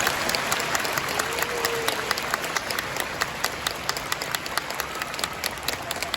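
Audience applauding, with many hands clapping irregularly; the clapping swells at the start and eases off slightly.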